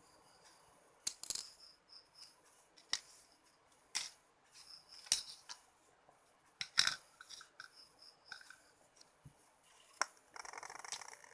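Scattered sharp clicks and snips, about eight, from small hand tools and electronic components being handled, with a short scraping rustle near the end.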